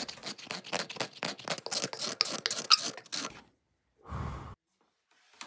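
A steel card scraper drawn in rapid short strokes across the carved bowl of a wooden spoon, smoothing out the ridges the chisel left. The scraping stops about three and a half seconds in, and a short breathy sound follows.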